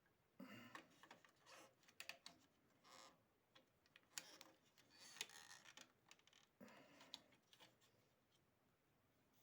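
Faint, irregular clicks and short rustles of small parts being handled during a fan repair, stopping about eight seconds in.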